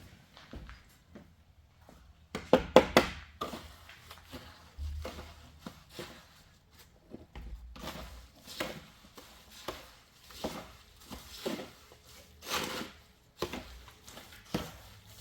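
Irregular knocks and scrapes of hands working with tools or materials, with a quick run of loud knocks a little over two seconds in.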